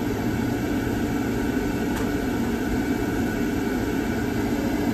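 Rebuilt Beckett AFII oil burner firing, its new motor and fan running with a steady low hum.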